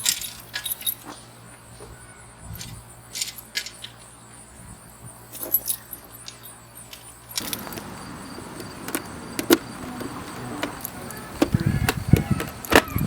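Metallic clinks and clicks from parts and tools being handled during motorcycle work, with heavier knocks and clatter in the last few seconds.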